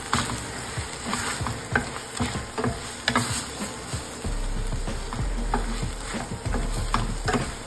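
Wooden spatula stirring a thick paneer and bell-pepper curry in a stainless steel pot, with irregular knocks and scrapes against the metal over a light sizzle of frying.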